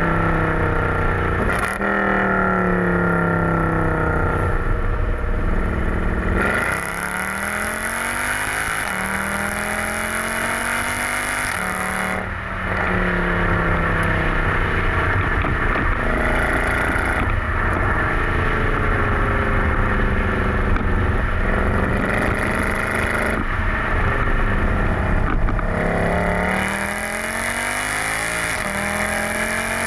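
Mercedes C63 AMG's 6.2-litre V8 exhaust, tuned with a Stage 2 map and the secondary cats removed, being driven hard. The engine note repeatedly climbs and falls through the gears, and it drops in level off the throttle about a third of the way in and again near the end.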